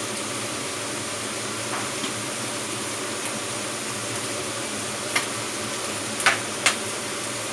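Fermented pork (naem) and beaten eggs frying in a pan with a steady sizzle while the eggs set. A few short sharp clicks come in the second half.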